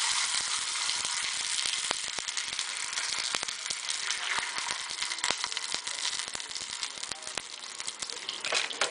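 Liquid boiling hard over chopped garlic in a hot glass saucepan on a gas burner: a steady sizzling hiss full of small crackling pops, easing slightly over the seconds.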